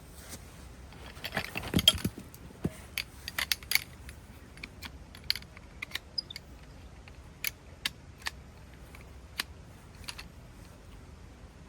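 Camping gear being handled, with scattered light clicks and metallic clinks and a louder knock about two seconds in.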